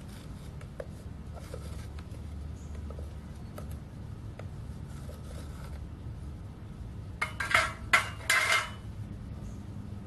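Metal tongs clinking and scraping against a crucible inside a propane-fired melting furnace. About seven seconds in comes a louder cluster of metal scraping and clanking as the crucible is gripped and drawn out. A steady low rumble runs underneath.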